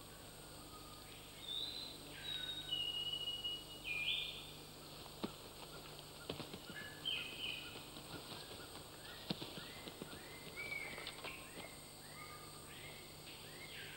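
Quiet forest ambience with scattered high whistled calls. Near the end comes a run of short repeated notes, about two a second.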